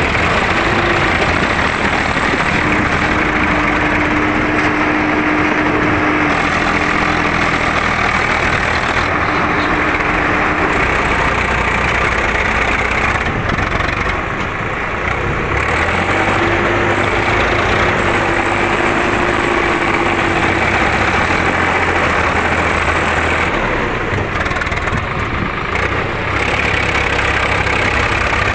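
Diesel engines of two Swaraj 744 XT tractors running steadily under load while pulling rotavators through sandy soil.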